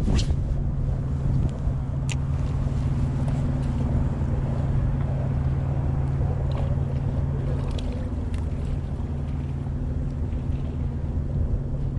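Engine running steadily, a low even drone, with a few faint sharp clicks over it.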